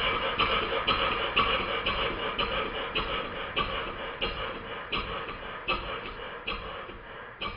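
Stuart No. 9 horizontal model steam engine running on compressed air, its exhaust beats puffing in an even rhythm now that its slide valve has been shortened to correct the valve timing. The beats slow from about two a second to just over one a second and grow fainter.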